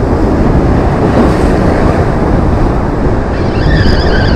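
Wind buffeting the microphone over surf washing against the breakwater rocks, a steady rushing noise. About three seconds in a faint, wavering high whine joins it.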